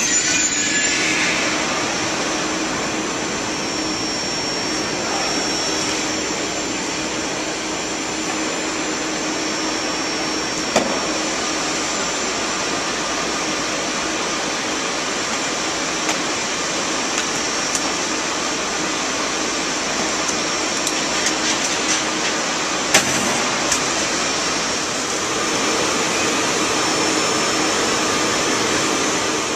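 A stationary ICE 3 high-speed train's cooling fans and air-conditioning running with a steady whooshing noise and a faint hum. A couple of sharp knocks, one about eleven seconds in and one about twenty-three seconds in, stand out above it.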